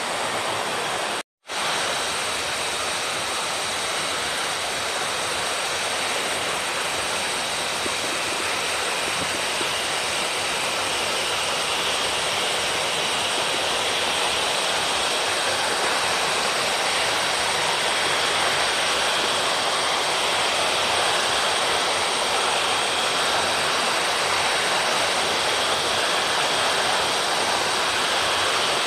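Steady rushing hiss of a small waterfall splashing onto the rocks and pool below. The sound drops out briefly about a second in.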